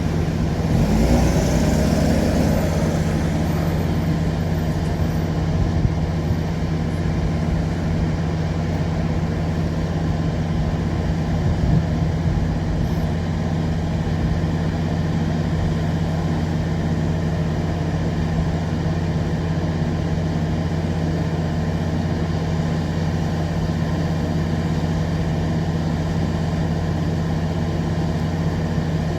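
Engine idling with a steady low hum, with a brief rise in pitch in the first couple of seconds.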